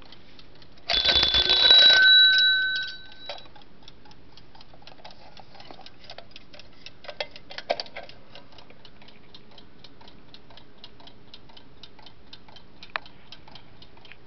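Ansonia wind-up alarm clock's bell alarm ringing loudly for about two seconds, starting about a second in, then the clock's mechanical movement ticking steadily.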